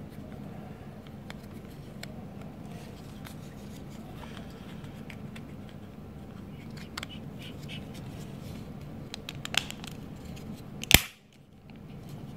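Small plastic headset parts being handled and fitted together: scattered light clicks and scratches, with one sharp, loud click about 11 seconds in.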